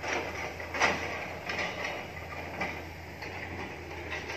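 Knocks and scraping as charred debris and loose metal in a fire-gutted Hitachi EX200 excavator's engine bay are handled, with one louder knock about a second in, over a steady low hum.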